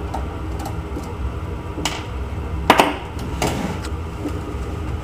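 Clicks and knocks of a screwdriver and screws against the steel computer case while the power supply's mounting screws are taken out. A double knock a little past halfway is the loudest, followed by a short scrape, all over a steady low hum.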